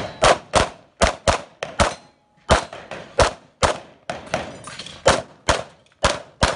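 Rapid 9mm pistol fire from a Walther PPQ Q5 Match SF: more than a dozen shots, mostly in quick pairs, with a half-second break about two seconds in.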